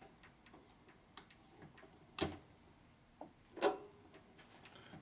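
Scattered light clicks and taps of metal parts and tools being handled at a drill press, with two sharper knocks about two and three and a half seconds in. The spindle is not running.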